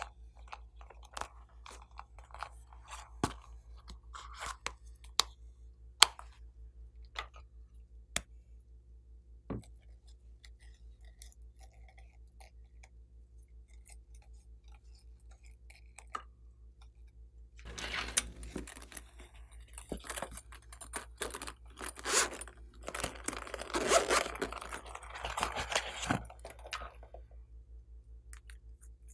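Hands handling plastic makeup items and a vinyl pouch: scattered sharp clicks and taps, then after a quiet stretch about ten seconds of dense crinkling and crunching with sharp clicks, over a low steady hum.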